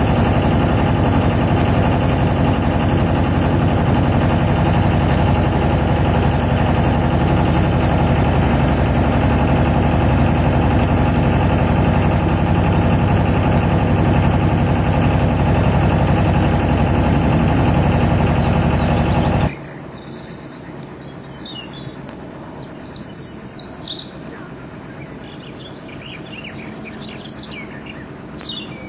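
A loud, steady mechanical drone with a fast, even pulse that cuts off abruptly about two-thirds of the way through. Small birds chirping and singing over a quiet background follow it.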